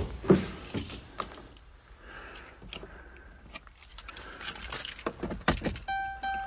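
Someone climbing into a minivan's driver's seat: two thumps at the start, then scattered clicks and keys jangling. About six seconds in, a steady electronic dashboard chime starts as the key goes toward the ignition.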